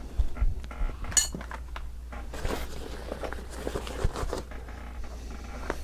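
A backpack being handled and rummaged through: scattered small clicks, knocks and clinks of buckles and gear, with a brief sharp metallic chink about a second in.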